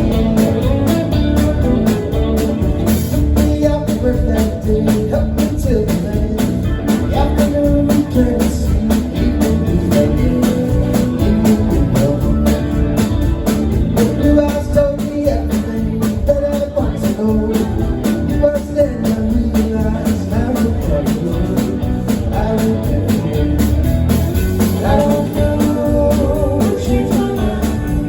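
Live band playing a blues-rock song, guitar to the fore, with singing.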